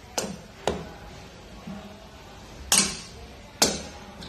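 Sharp metallic clinks and knocks from the parts of a valve taken out of an engine head, its valve spring and valve, being handled and set down. There are four separate strikes, the last two the loudest.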